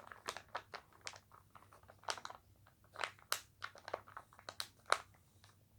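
Homemade toothpaste slime being mixed, giving faint, irregular sticky clicks and crackles.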